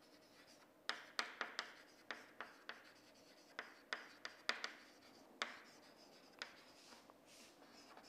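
Chalk writing on a chalkboard: a faint run of irregular taps and short scrapes as letters are written. It starts about a second in and thins out near the end.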